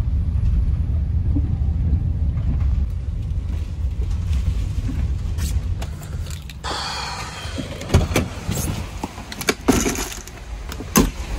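Steady low rumble of wind buffeting and road noise inside a camper van's cab while driving in hurricane-force wind. A little past halfway it gives way suddenly to a brighter hiss broken by several sharp knocks and clicks.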